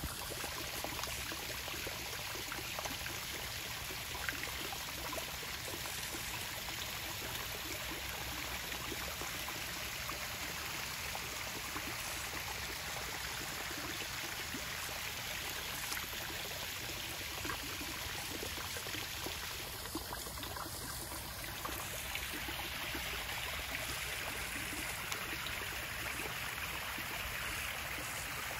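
Backyard pond waterfall running steadily, water spilling over rocks and splashing into the pond.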